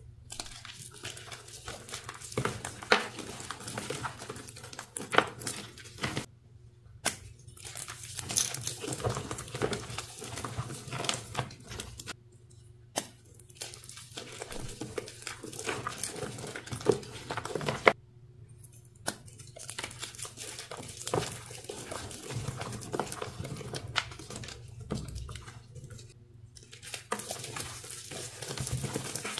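Dyed gym chalk reforms being crushed by hand: dense, irregular crunching and crackling as the pressed chalk breaks into crumbles and powder, stopping briefly a few times.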